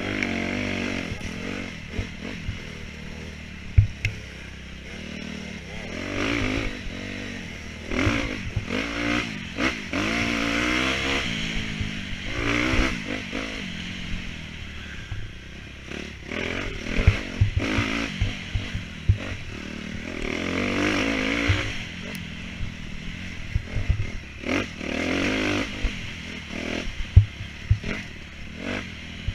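Off-road dirt bike engine revving up and falling back again and again, with scattered knocks and clatter.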